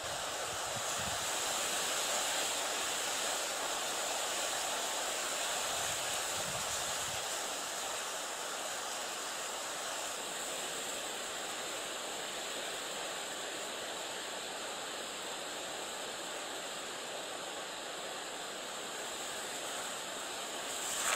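Steady wind and rippling lake water: an even hiss with a few faint low rumbles of wind. A brief sharp sound comes right at the very end.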